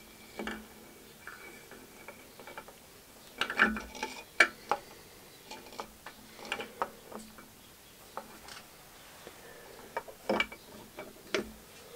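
Scattered metallic clicks, clinks and taps as a piston and connecting rod are handled in a tapered ring-compressor sleeve and the sleeve is shifted and seated on a bore of a cast-iron A-series 1275 engine block. The taps come irregularly, bunched around four seconds in and again near the end.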